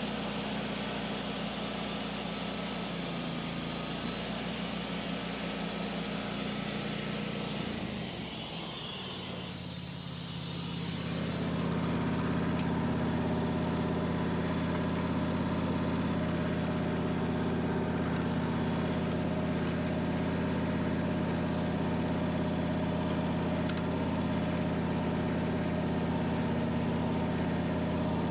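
Wood-Mizer LT15 portable sawmill's gas engine running with the band blade sawing through a black locust log, a dense hiss over the engine. About ten seconds in the cut stops and the engine keeps running steadily without the sawing hiss; the cut was halted because the log shifted in loose clamps.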